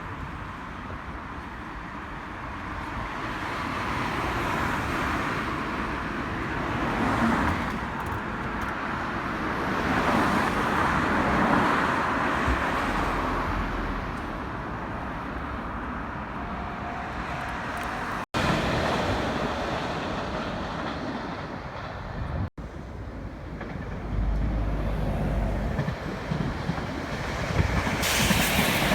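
Road traffic passing a railway level crossing, swelling and fading as vehicles go by. The sound cuts out for an instant twice, and near the end a louder, brighter rush begins as a train starts to pass.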